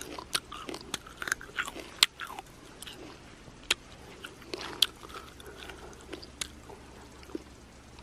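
Crisp, irregular crunches and clicks of someone biting and chewing a firm, unripe green plum close to the microphone.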